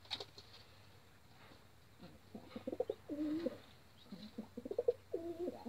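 Domestic pigeons cooing: a run of low, repeated coos that starts about two seconds in.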